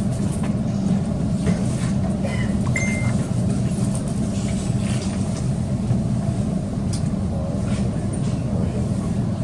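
Electric suburban train running, heard from inside the carriage: a steady low rumble of motors and wheels on the rails, with a brief high tone about three seconds in.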